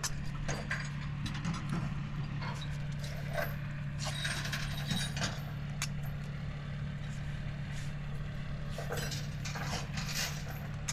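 An engine running steadily at idle, with intermittent metallic clicks and rattles over it.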